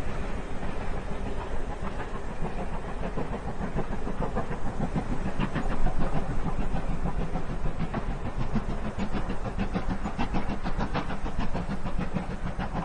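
Steam railway train running, a steady low rumble with a dense run of short clanks and clicks that grows sharper from about five seconds in.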